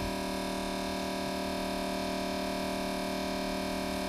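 Diesel-fuel transfer pump running with a steady hum, pumping warm engine oil through its hose and nozzle into a funnel.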